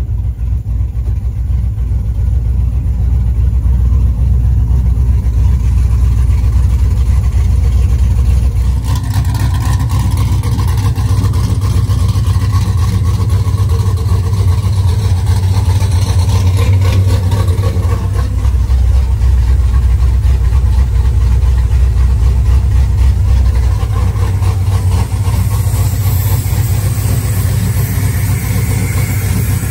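LS-swapped 6.0-litre V8 in a Chevy S10, fitted with a large Cam Motion Junkyard Dog nitrous camshaft, running at a steady idle. It is heard first from inside the cab, then from outside the truck from about nine seconds in.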